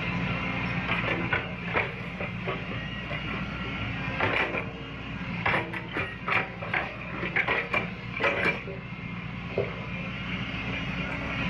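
CAT hydraulic excavator's diesel engine running steadily, with a run of sharp metallic clanks and knocks from the machine working, bunched through the middle few seconds.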